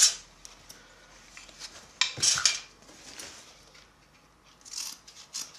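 Metal hand tools being put down and picked up on a workbench: a sharp clank at the start, a louder clatter about two seconds in, and a smaller clink near the end.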